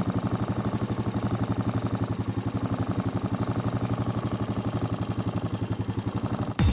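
Farm vehicle's engine running steadily at an even speed with a rapid, regular putter. It breaks off abruptly near the end into a louder sound.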